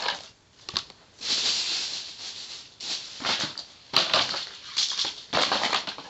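Irregular rustling in short bursts with a few sharp clicks, made close to the microphone.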